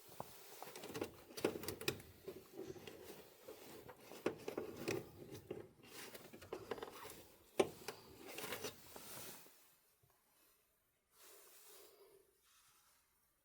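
Hands working on parts: irregular clicks, taps and rustling, with one sharp click a little past halfway, then much quieter for the last few seconds.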